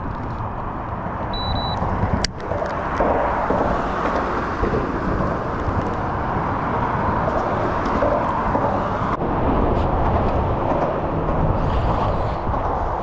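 Wind buffeting the microphone, a steady rushing rumble. A brief high beep and a sharp click come about two seconds in.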